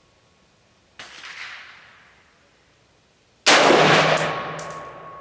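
Radical Firearms RF-15 AR-15 rifle firing a 55-grain round: one loud shot about three and a half seconds in that rings out and dies away over a second or so. A fainter bang comes about a second in.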